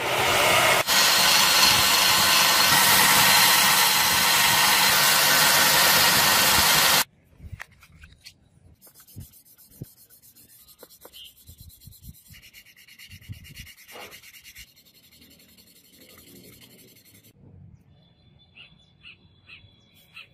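Belt grinder running loud and steady for about seven seconds, then cutting off suddenly. After that comes a faint scratching as a small metal piece is rubbed by hand on sandpaper.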